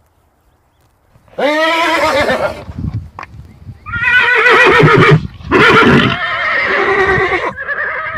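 Horse whinnying several times: a first whinny about a second in, then a longer string of whinnies with a quavering pitch from about four seconds on.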